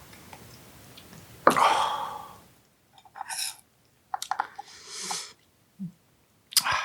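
A man's sharp, breathy exhale after a shot of soju, about a second and a half in, fading over about a second, followed by a few shorter breaths.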